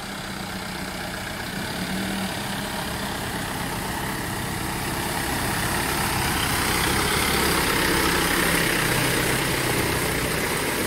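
Mahindra Bolero pickup's engine running at low revs as it crawls through a deep, muddy, water-filled rut, with mud and water churning under the tyres. It grows steadily louder as the truck comes close, loudest a little after the middle.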